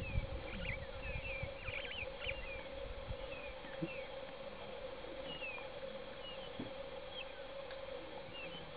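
Bush ambience: a steady insect drone with birds calling in short, high chirps throughout. There is faint low rustling in the first second or so.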